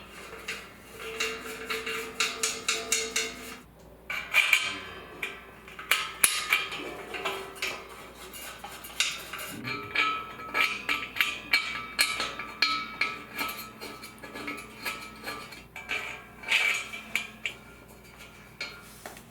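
Metal clinking and clicking of an Allen key turning steel bolts into a hall tree's black steel frame, fastening a shelf in place: irregular rapid clinks throughout.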